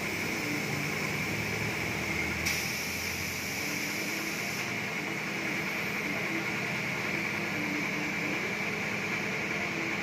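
Steady machine hum and hiss, with a brighter, higher hiss added for about two seconds starting about two and a half seconds in.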